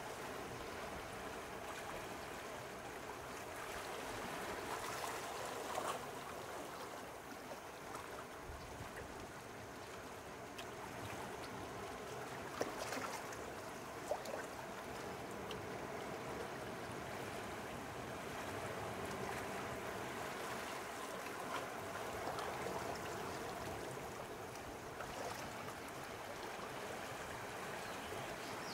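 Small sea waves lapping and trickling at the shore, a steady watery wash with a couple of brief clicks about halfway through.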